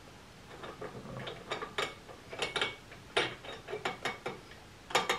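Gear train of a wooden reproduction Antikythera mechanism being turned by hand at its side knob: its cogwheels click and clack irregularly as they rotate. The owner finds the gearing badly attached and not built for turning.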